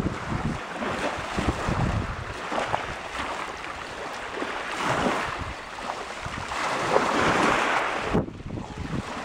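Small sea waves washing in over a shingle beach, surging louder a few times and loudest about seven seconds in, with wind buffeting the microphone.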